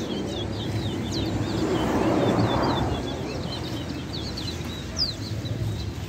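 Caged towa-towa finches (chestnut-bellied seed finches) singing, a run of quick, high twittering chirps and short slurred notes. A brief rush of noise swells and fades about two seconds in.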